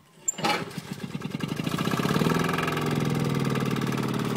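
Single-axle tractor's engine started by hand: it catches about half a second in, its firing quickens over the next second and a half, then it settles into a steady idle.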